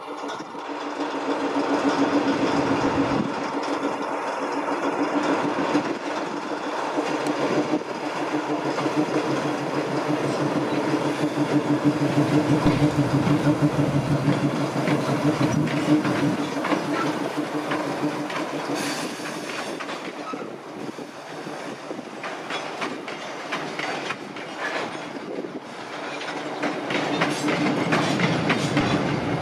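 Diesel freight locomotive passing close, its engine running with a steady hum, followed by a string of flat wagons rolling past with wheels clicking over the rail joints.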